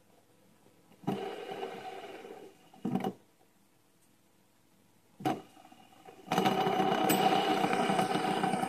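Fidget spinner being flicked into spinning: a short whir that dies away, two brief ones, then from about six seconds in a loud, steady whirring buzz as the spinner spins lying flat on the tabletop.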